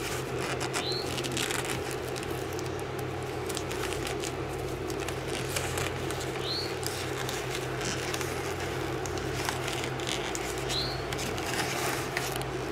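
Foil-faced foam insulation sheet rustling and crinkling with scattered light crackles as it is pressed and smoothed against the van's metal. A steady low hum runs underneath, and three brief rising chirps stand out.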